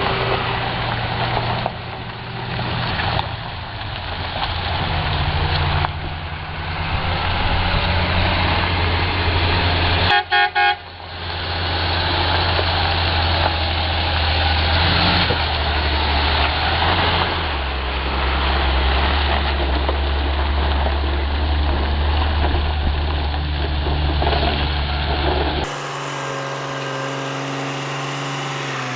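Heavy truck engine running, its low drone shifting as it works, with broad road and mechanical noise over it. About ten seconds in, a horn sounds in a few quick short toots. Near the end the sound cuts abruptly to a different, quieter steady hum.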